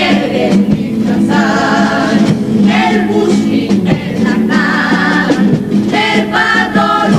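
A Cádiz carnival comparsa of women singing together in a chorus over Spanish guitar, in several phrases with short breaks between them.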